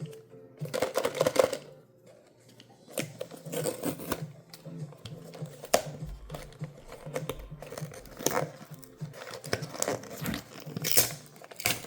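Blind-box packaging being torn open and crinkled by hand: a burst of rustling about a second in, then many irregular tears and crackles.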